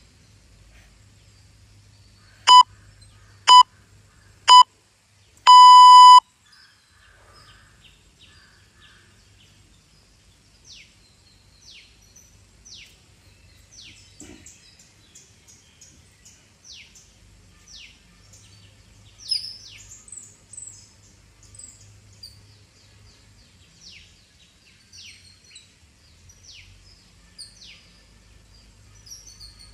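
Interval-timer countdown beeps: three short beeps a second apart, then one longer beep, signalling the end of the countdown and the start of the next workout interval. After that, birds chirp with many short, quick downward-sweeping calls.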